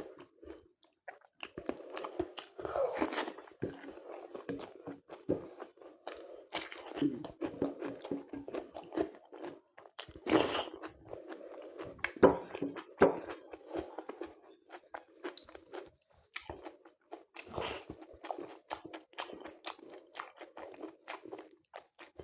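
Close-miked eating: a person chewing chicken curry with luchi and salad, with wet mouth clicks and scattered louder crunches, the loudest about ten and twelve seconds in.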